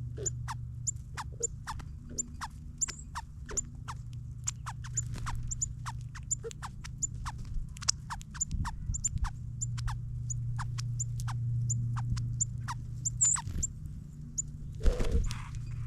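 Birds at a ground feeder giving a rapid series of short, sharp, high chip notes, about three a second, over a steady low hum. A louder knock comes near the end.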